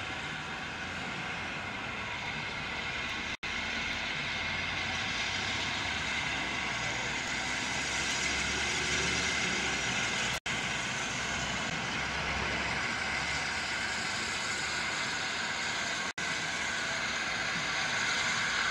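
BR Standard Class 8 Pacific No. 71000 Duke of Gloucester, a three-cylinder steam locomotive, moving slowly with a steady hiss of steam from its open cylinder drain cocks and a low rumble. The sound drops out for an instant three times.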